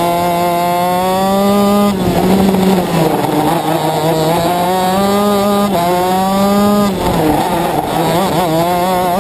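Shifter kart's two-stroke engine at racing speed, its pitch climbing and then dropping sharply at each upshift, about two, six and seven seconds in. The note dips and wavers briefly near the end as the revs come down.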